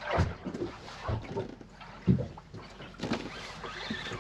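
Water lapping and slapping against the hull of a small boat, with a few soft, irregular knocks about once a second.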